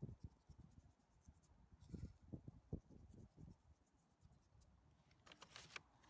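Faint scratchy ticking of dried herbs and spice being shaken out of a small plastic container, with a short burst of crisp ticks near the end, over soft low thumps.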